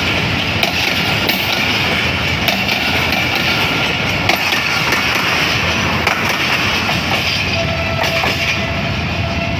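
Passenger coaches of an express train passing close at speed, with a steady rumble of wheels on the track and scattered clicks over the rail joints.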